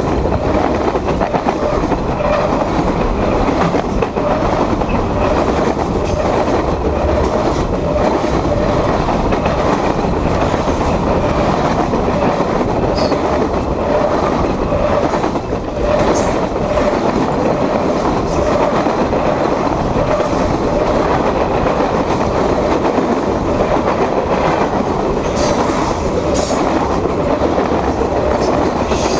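Freight train of covered hopper cars rolling past, heard from right beside the rail: a loud, steady rumble and clatter of steel wheels on the track, with a few brief high squeals of wheel on rail.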